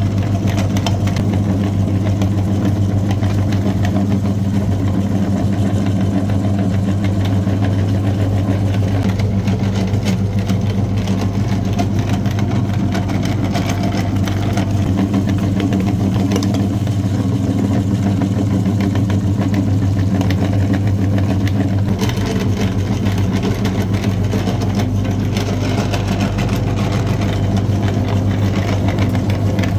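A steady mechanical drone like an engine idling, even in level throughout, with a deep, constant hum.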